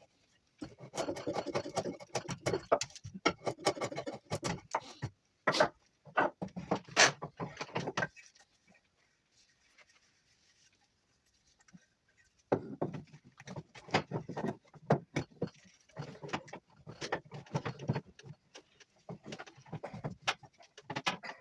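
Juniper wood being carved by hand with a blade: runs of quick cutting and scraping strokes, with a pause of about four seconds in the middle.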